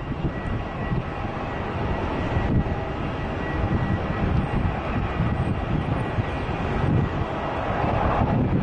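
Airbus A350's two Rolls-Royce Trent XWB turbofans at climb power as the airliner climbs away after takeoff: a steady deep jet rumble, with a faint steady high tone in the first few seconds.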